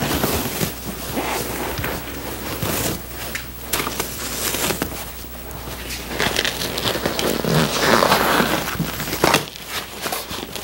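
Gloved hands tearing and pulling old, crumbling seat foam and vinyl upholstery off a bucket seat frame: irregular rasping, ripping and crackling with small clicks, loudest about eight seconds in.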